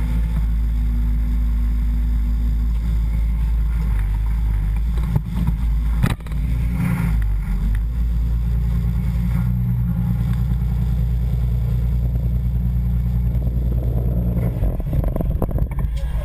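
Flat-nose school bus's engine running steadily, with two sharp knocks about five and six seconds in.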